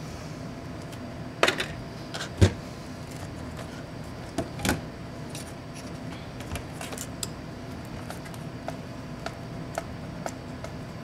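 Handling noise from taking apart a laptop's display assembly: a few sharp knocks and clatters of the LCD panel and lid parts on the workbench in the first five seconds, the loudest about two and a half seconds in. After that come light clicks and ticks as fingers work at the screen's cable connector, over a steady low hum.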